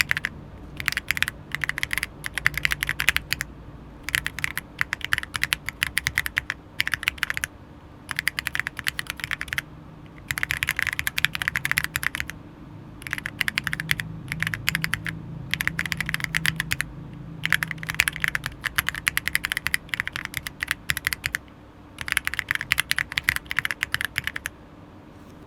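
Fast typing on a gasket-mounted Monka 6067 aluminium keyboard with unlubed Akko CS Jelly White linear switches and KOL Pixel keycaps. Keystrokes come in rapid runs of one to two seconds, broken by short pauses.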